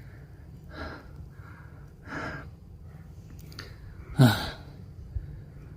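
A person breathing hard after a steep climb, with heavy noisy breaths about every second, and a short voiced gasp about four seconds in.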